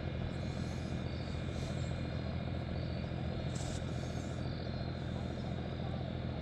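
Truck engines running in the background, a steady low rumble that does not change.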